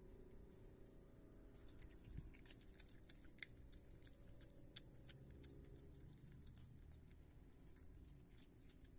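Virginia opossum chewing soft cat food and sour cream: faint, wet smacking and clicking of the jaws, thickest in the middle of the stretch, over a faint steady low hum.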